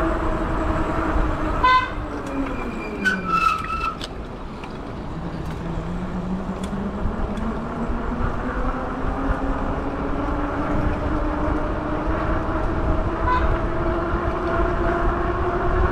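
A car-style horn fitted to an e-bike gives a few short honks in the first four seconds, and one more brief toot later. Under it an e-bike motor whines, its pitch dropping as the bike slows, then rising steadily as it speeds back up.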